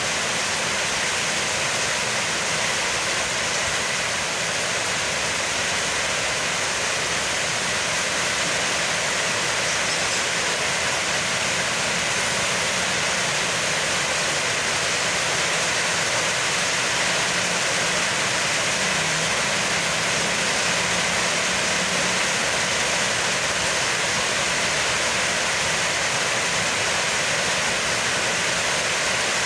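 Heavy rain pouring down, a steady, even hiss with no letup.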